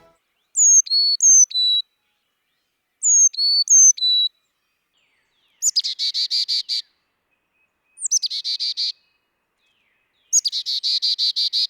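Carolina chickadee: two four-note whistled songs, each of alternating high and lower notes that slur downward. These are followed by three runs of rapid buzzy notes, the last two opened by a single high note, the chickadee's 'chick-a-dee-dee-dee' call.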